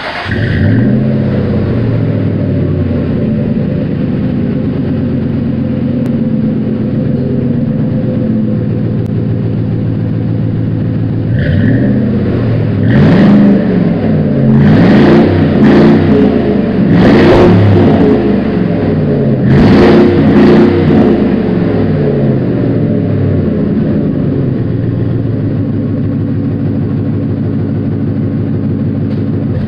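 2000 Ford F-150 engine running through a Flowmaster Super 40 dual exhaust: it idles steadily, then gets about five quick revs that rise and fall between roughly a third and two thirds of the way in, then settles back to idle.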